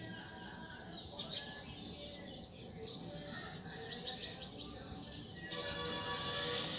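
Small birds chirping now and then in short, high calls. A little after five seconds a fuller layer of sound with several held tones comes in under them.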